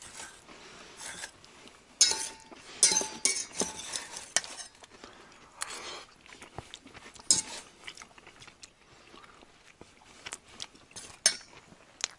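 Metal spoon clinking and scraping against a metal bowl while food is dished up, in scattered sharp clinks, a few with a short ring; the loudest come about two to three seconds in and again near the end.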